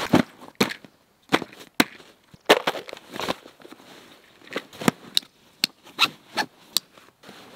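Irregular sharp clicks and knocks of a canvas backpack's plastic buckles and straps being closed and fastened by hand.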